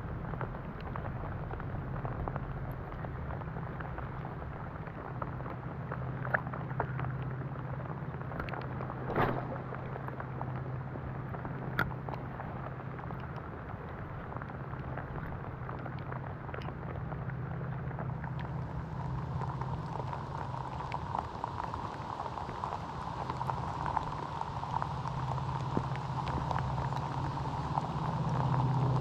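Steady rain falling, with many small drop ticks over a constant low rumble. A wider rushing noise comes in about two-thirds of the way through, and the sound grows louder near the end.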